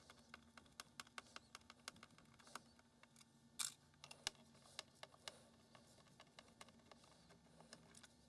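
Faint, irregular small clicks and taps from a Torx number 10 screwdriver working the battery cover screws out of the device, with a couple of louder clicks near the middle.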